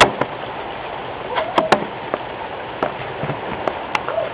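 Steady hiss of rain in a thunderstorm, with several sharp taps of heavy raindrops striking a hard surface, scattered unevenly.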